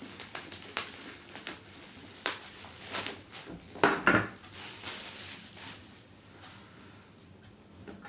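Cardboard packaging being handled and opened by hand: scattered taps, scrapes and rustles, loudest about four seconds in, then quieter handling.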